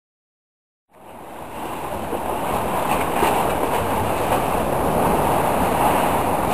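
Sea surf breaking and washing around a concrete groyne: a steady rush of waves that starts about a second in.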